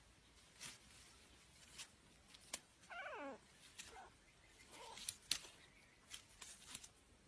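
A cat gives one short meow that falls steeply in pitch about three seconds in, followed by two fainter, shorter calls. Faint scattered clicks and rustles sound between them.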